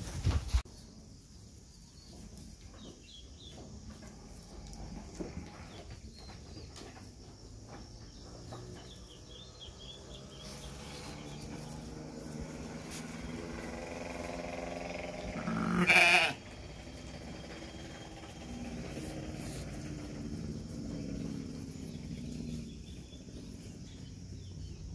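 A Batur ewe and her newborn lambs bleating: low, drawn-out calls through the middle, and one loud bleat about sixteen seconds in. There is a brief sharp knock right at the start.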